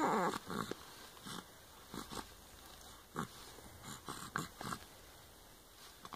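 Soft sounds from a 12-week-old baby: a short coo falling in pitch right at the start, then quiet breaths and small mouth noises.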